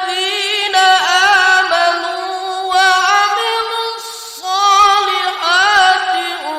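Melodic Quran recitation (tilawah): a single unaccompanied voice drawing out long, ornamented notes with wavering pitch, breaking off briefly about four seconds in before going on.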